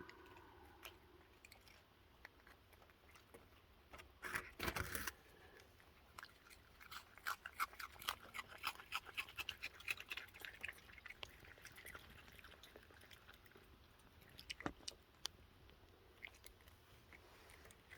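Raccoons chewing and crunching cookies: faint, quick crunchy clicks, thickest in the middle stretch, with a brief louder scuffle about four seconds in.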